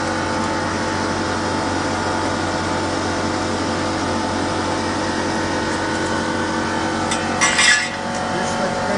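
A CNC milling machine running with a steady, many-toned hum. About seven and a half seconds in, there is a brief metallic clinking rattle.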